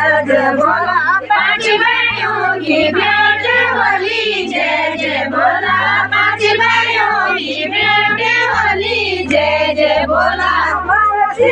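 A group of voices singing a Pahadi folk song together, over a low bass line that steps to a new note every second or two.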